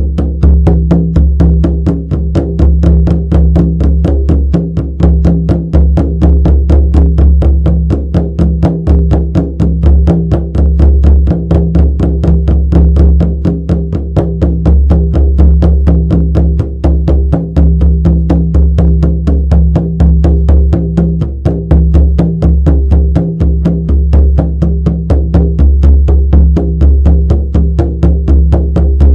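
Shamanic frame drum beaten in a fast, steady, unchanging rhythm, each stroke ringing into a deep resonant boom that carries on between beats.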